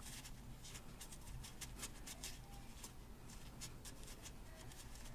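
Faint rubbing and a run of small scratchy clicks as fingertips and a paper towel press and smooth putty into a hole in a hydraulic jack's cast base, sealing it.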